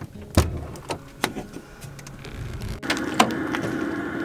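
A few sharp clicks and one dull thump from a latch and plastic fitting on a van's interior panel being handled. About three seconds in, this gives way to a steady low hum.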